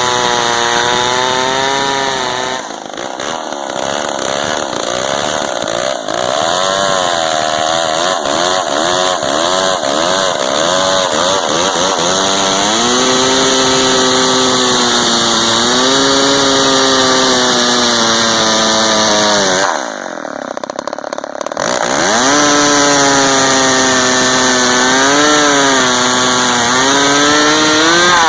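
Gas chainsaw running hard through wood, its engine speed wavering up and down under load and twice easing off briefly, about three and twenty seconds in.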